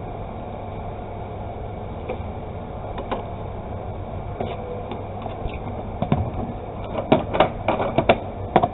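Steady low background hum with scattered clicks and knocks of things being handled, coming thicker in the last few seconds.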